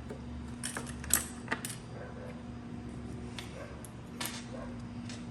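Light clicks and clatters of small toy play-food pieces and toy dishes being picked up and set down, about half a dozen separate taps, over a faint steady hum.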